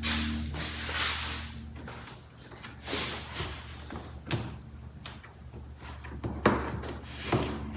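Irregular handling noises of hand work on a car: scraping and rustling with scattered clicks and a few sharp knocks, over a steady low hum.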